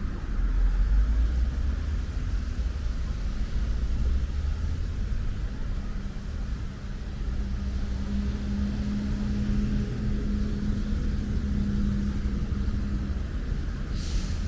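Steady low rumble of road traffic, with a vehicle engine's hum holding a steady pitch for several seconds in the middle, over a light hiss of rain. A short sharp click comes near the end.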